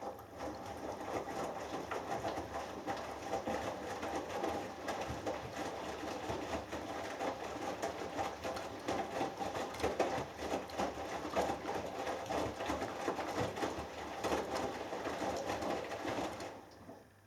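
Hoover Dynamic Next washing machine drum tumbling a 6 kg cotton load through rinse water, with irregular sloshing and soft knocks of the laundry falling, starting suddenly and stopping about sixteen seconds later as the drum pauses between turns.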